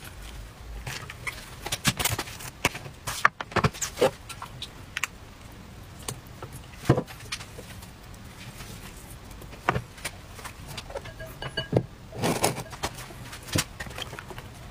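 Irregular light clicks, taps and soft knocks of hands handling thin crepes, a plate and an electric crepe pan, with a short rustling cluster about twelve seconds in.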